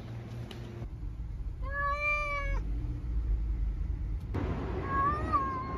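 A cat meowing in protest from inside a mesh pet carrier: one long, drawn-out meow about two seconds in, then a second meow near the end that bends up and down in pitch, over a low rumble.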